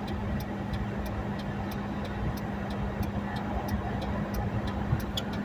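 Stopped car idling, heard from inside the cabin: a steady hum and low rumble, with a light, even ticking about three times a second.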